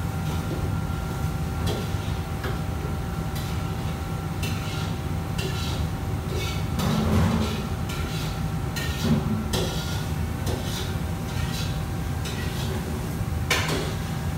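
Steady low rumble and hum of a commercial kitchen's wok range and extraction hood, with scattered clatter of metal utensils, pans and dishes being handled. The loudest clatters come about seven and nine seconds in, and again near the end.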